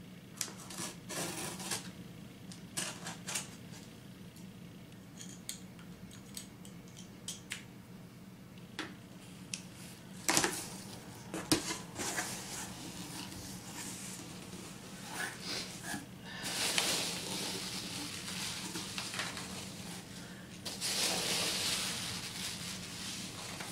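Cardboard shipping box being opened by hand: scraping and clicks as the packing tape is slit with a pen, a few louder knocks about halfway through as the flaps are pulled open, then long stretches of rustling near the end as hands dig through the packing peanuts.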